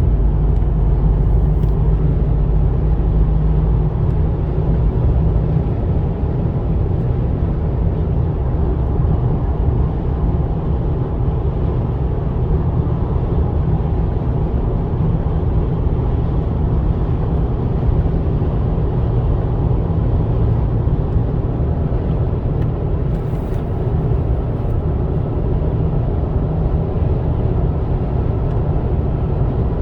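Steady low rumble of road and tyre noise heard inside the cabin of a 2006 Lexus LS430 cruising at highway speed.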